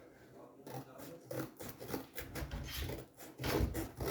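A quick, irregular run of light knocks and clicks, louder about three and a half seconds in, the kind made by cardboard being handled or a door being knocked.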